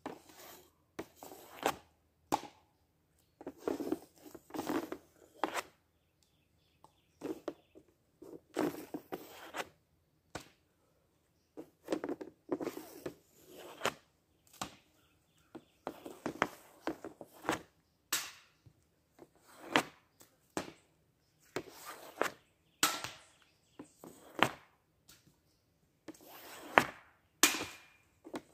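Hockey stick shooting pucks off a plastic shooting pad, one after another: sharp clacks and slaps of the stick on puck and pad, irregularly spaced, with scraping as pucks are pulled off the pile, and a few much louder cracks.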